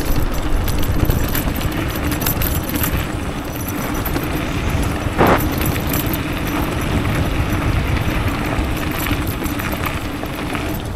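Riding noise of a homemade 72 V, 3000 W electric downhill bike on a dirt and gravel path: a steady low rumble from the tyres and the moving air, with rattling and a faint steady hum. There is one sharp knock about five seconds in.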